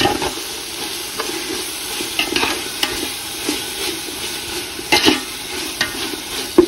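A biryani masala base frying in a pot with a steady sizzle while a spoon stirs and scrapes it, knocking against the pot now and then. The loudest knocks come about five seconds in and again near the end.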